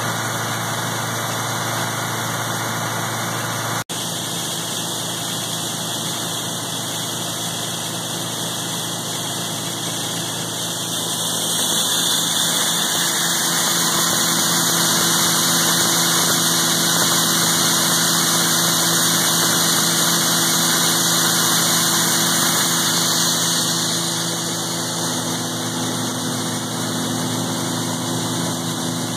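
International Harvester tractor engine running steadily, driving a grinder-mixer through the PTO as it grinds feed. The drone breaks off for an instant about four seconds in, and from about eleven seconds in it grows louder with a rushing hiss of the mill for more than ten seconds.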